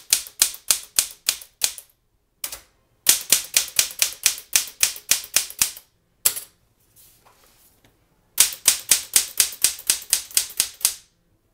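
Manual typewriter being typed on: runs of sharp keystrokes about five a second, in three bursts separated by short pauses with a lone stroke or two between them.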